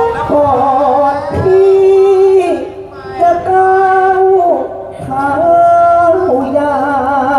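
A voice singing long, drawn-out notes that waver, with musical accompaniment; the singing dips briefly twice.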